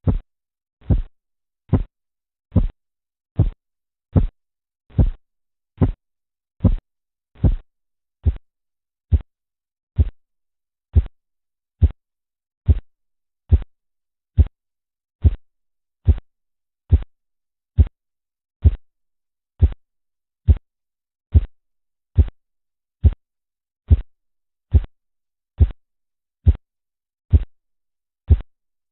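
Korotkoff sounds heard through a stethoscope over an artery occluded by a deflating blood pressure cuff: a regular series of short, low thumps, about 70 a minute.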